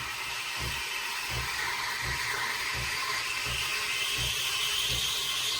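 Breville Oracle Jet's automatic steam wand frothing oat milk: a steady steam hiss whose pitch slowly rises as the milk heats and foams, with a low pulse about every 0.7 s underneath.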